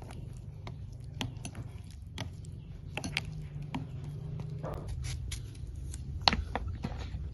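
A metal spoon stirring a runny mixture in a glass bowl: wet squishing with scattered clicks of the spoon against the glass, and one sharper click a little after six seconds.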